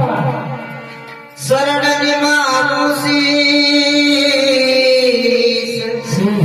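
Rajasthani devotional bhajan: a male singer's voice fades out, then about a second and a half in he holds one long drawn-out note with slight bends, over musical accompaniment.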